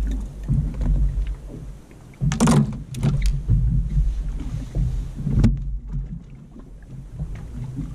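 Low wind rumble on the microphone with scattered clicks and knocks from handling a freshly caught amberjack in a small boat. There is a loud rustling burst about two and a half seconds in and a sharp knock a little after five seconds.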